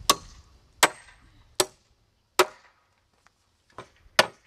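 Hammer driving nails through a wooden brace into a timber 4x4 post: four sharp, evenly spaced blows, then after a short pause a light tap and one more hard blow.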